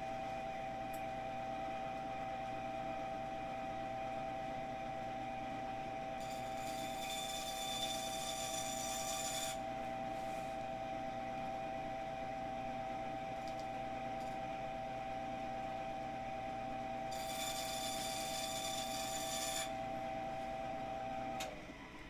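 Bandsaw running with a steady hum and cutting through PVC pipe twice, each cut a few seconds of high hissing buzz. It is switched off near the end and the hum dies away.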